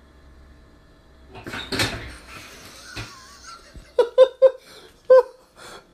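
A brief rustling clatter as a cat drops into a stainless steel swing-lid trash can, then a person laughing in short bursts near the end.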